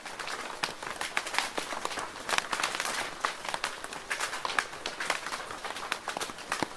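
Rain falling steadily: a constant hiss dotted with many sharp, irregular drop impacts.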